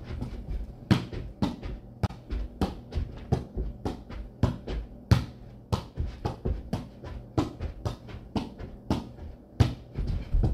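Soccer ball being juggled with bare feet and legs: a quick, uneven run of sharp touches, about three a second.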